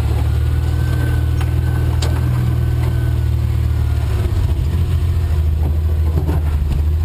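1983 Ford Ranger's 2.8-litre V6 running steadily while the truck crawls off-road, with a couple of light knocks.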